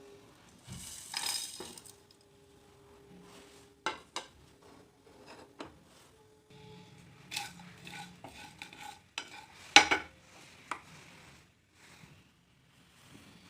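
Kitchen utensils clinking and knocking: a spoon or other metal cutlery striking dishes and pans in irregular, scattered clinks. The loudest knock comes near ten seconds in.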